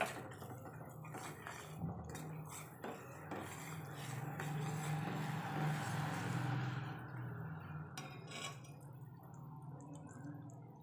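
Steel spoon stirring and clinking against an aluminium pan of sugar syrup boiling down for Mysore pak, with the syrup bubbling; the stirring and bubbling grow louder about four seconds in and ease off after about seven seconds.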